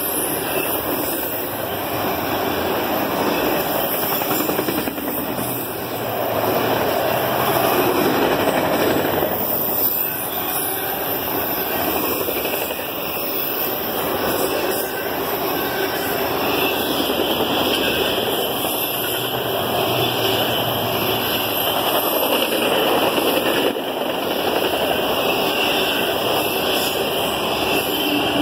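Freight train of autorack cars rolling past close by: steady noise of steel wheels running on rail.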